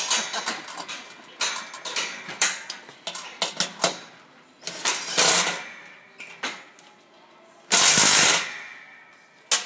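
Irregular clanks, knocks and rattles of metal wall-panel hardware being handled and shifted into place, with a loud, harsh burst of scraping or rattling noise lasting under a second about eight seconds in.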